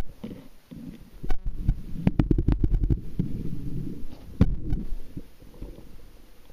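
Muffled underwater sound picked up by a submerged camera: low rumbling of water moving around it, with scattered sharp clicks and knocks, a cluster of them about two seconds in and a strong one near four and a half seconds.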